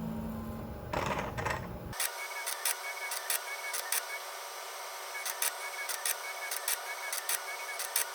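Small motor-driven desktop robot arm moving, a mechanical whir with many sharp, irregular clicks. The sound changes abruptly about two seconds in, losing its low rumble as the clicking starts.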